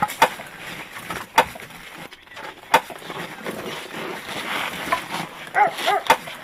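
Split firewood logs knocking together as they are stacked onto a woodpile: four sharp wooden knocks, irregularly spaced, over the softer clatter and rustle of handling the wood.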